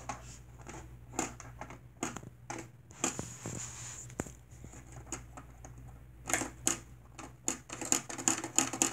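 Plastic Lego bricks clicking and rattling as they are handled: scattered sharp clicks, coming thick and fast over the last few seconds.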